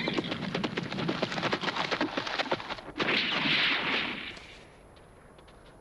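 A fast clatter of knocks for about three seconds, then a louder burst of hissing noise that dies away about a second and a half later.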